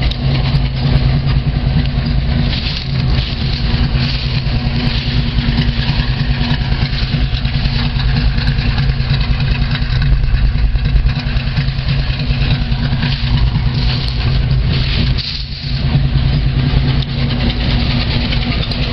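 Carbureted car engine idling steadily on the choke while still cold, just after a cold start. The running dips briefly about fifteen seconds in, then steadies again.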